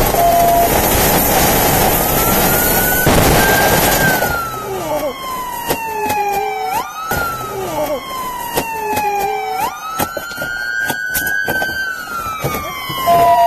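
Police cruiser siren on a wail, its pitch sliding slowly down and then sweeping back up about every three seconds. For the first four seconds it is half buried under loud road and engine rush, and scattered sharp clicks sound through it.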